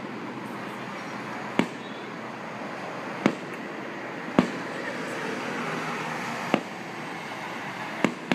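Fireworks bursting: six sharp bangs spaced irregularly, the loudest about halfway through and two close together near the end, over steady background noise.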